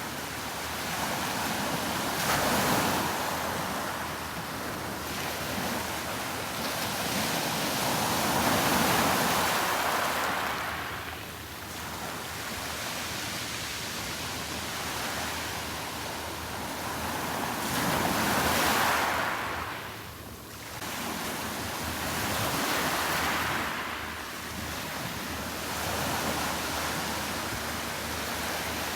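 Sea waves breaking on a beach. The surf swells and falls away in slow surges every several seconds.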